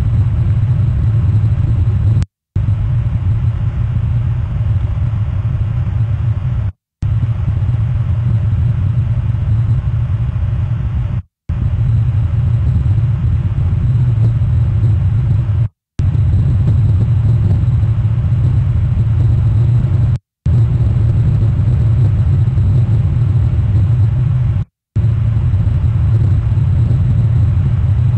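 Low, steady rumble of a cruise ship's engines passing in the night. The sound cuts out completely for a moment about every four and a half seconds.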